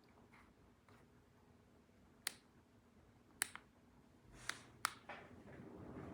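Quiet room with a few short, sharp clicks or taps: one about two seconds in, one about three and a half seconds in, and two close together between four and a half and five seconds.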